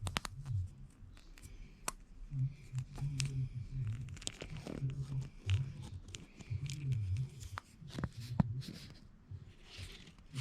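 Handling noises: scattered clicks, taps and rustles as a small power bank and its packaging are handled.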